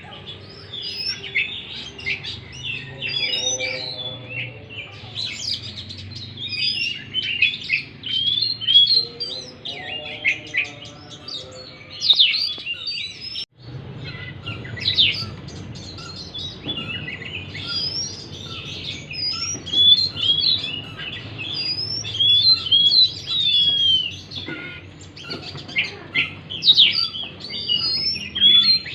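Oriental magpie-robin (kacer) song: a fast, unbroken run of varied high whistles, chirps and trills, played as a lure song to set a silent, stressed kacer singing. The sound cuts out briefly about halfway through.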